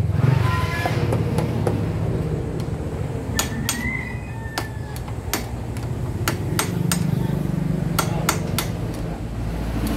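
Claw hammer tapping a screwdriver used as a drift against the scooter's steering-stem nut, seating newly fitted steering-head (knuckle) bearings: a series of sharp metal-on-metal taps at uneven intervals.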